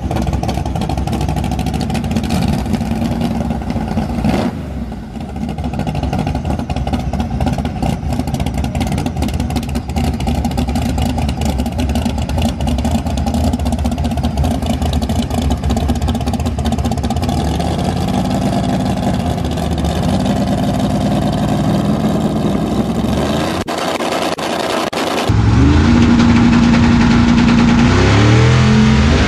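Drag-racing car engines running hard at full throttle, with the revs climbing in steps as the car shifts up through the gears toward the end.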